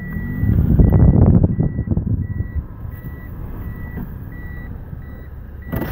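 A vehicle's electronic warning beeper sounds a single steady high beep, repeating about every 0.7 seconds. A loud low rumble fills the first couple of seconds.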